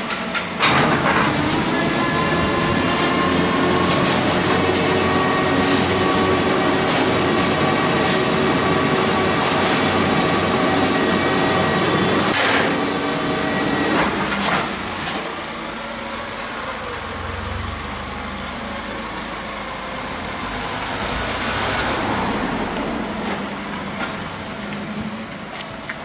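Rear-loading garbage truck's compactor mechanism running, a loud steady mechanical whine with the engine held at speed for about twelve seconds. It then stops, and the truck's engine is heard more quietly as the truck pulls away.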